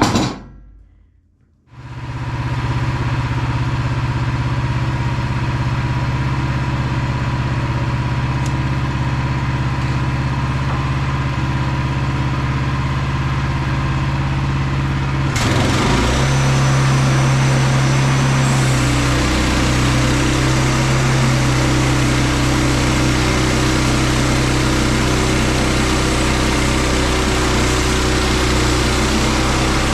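A short knock, then the small gas engine of a Woodland Mills HM122 sawmill starts about two seconds in and runs steadily. About halfway through the sound changes abruptly and grows slightly louder, as the engine is throttled up and the mill's blade is brought up to speed.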